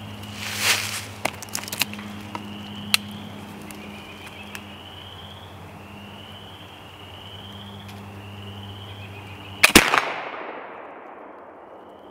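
.54-calibre Kibler Woodsrunner flintlock rifle firing one black-powder shot about ten seconds in, its report echoing and trailing off over about two seconds. Before it there is rustling and a few light clicks as the rifle is brought up against the tree.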